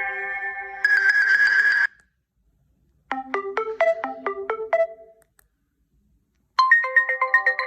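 Nokia C2-01 ringtones played one after another. One melody ends about two seconds in, a short run of quick notes follows after a pause, and another melody starts near the end.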